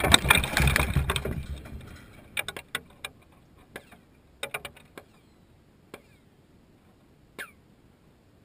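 A 1.25 lb Tannerite binary-explosive charge going off close by, its blast fading away over about two seconds. Then scattered sharp clatters and knocks follow for several seconds as pieces of debris land.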